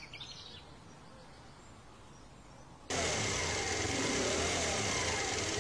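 A motorcycle engine running steadily as the bike approaches. It comes in suddenly about three seconds in, after a quiet stretch.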